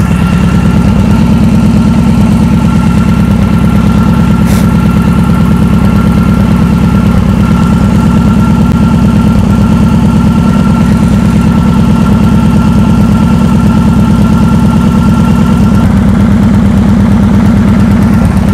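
2007 Victory Vegas V-twin motorcycle engine idling steadily, with an even pulse of firing strokes.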